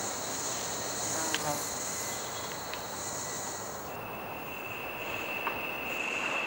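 Night insect chorus of crickets, with a steady high-pitched trill. About four seconds in it changes to a single steady lower whine with a short buzz repeating about once a second above it.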